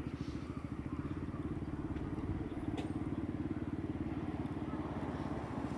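Engine idling steadily with an even, fast low throb.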